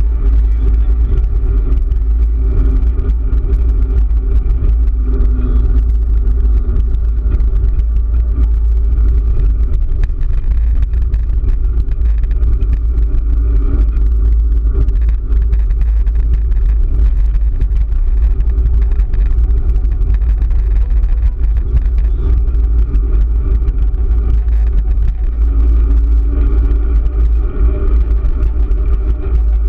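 Wind buffeting the microphone of a bike-mounted camera while cycling along a road: a steady, loud low rumble.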